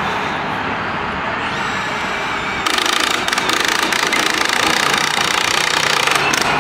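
Utility digger-derrick truck's engine running steadily. About three seconds in, a louder, harsh drilling noise starts and runs for about three and a half seconds before stopping shortly before the end.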